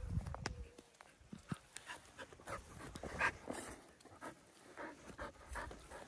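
A dog panting close to the microphone, mixed with short scuffs and rustles.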